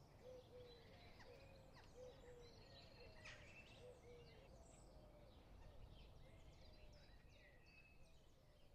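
Faint outdoor ambience with birds calling: a quick run of short repeated low notes and scattered higher chirps over a low background rumble.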